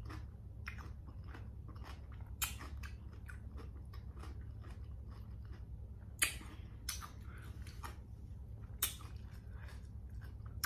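Close-miked chewing of a mouthful of raw cucumber: a steady run of small wet crunches and mouth clicks, with a few louder crunches about two and a half, six and nine seconds in.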